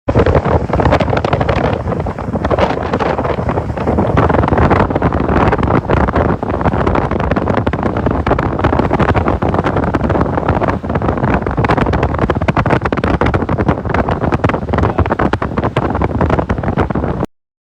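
Loud, steady wind rushing and buffeting across the microphone, with no speech. It cuts off abruptly near the end.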